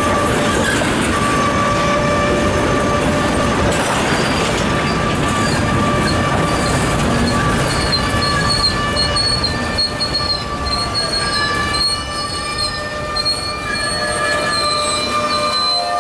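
Freight cars rolling past on the rails, a dense steady roar of wheels on track with high-pitched wheel squeal over it; the squeal wavers and breaks up from about halfway through.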